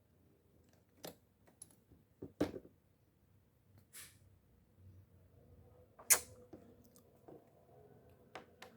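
Scattered sharp clicks and taps of small metal parts and tools being handled during disassembly of a rusted fishing reel, with a brief hiss around four seconds in. The loudest knock comes about six seconds in.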